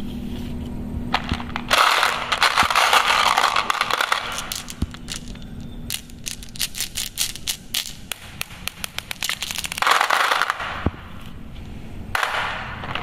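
Glass and plastic marbles clattering against each other and the plastic bed of a toy dump truck as a hand scoops and stirs them. There are dense rattling spells about two seconds in, around ten seconds and near the end, with single sharp clicks of marbles knocking together in between.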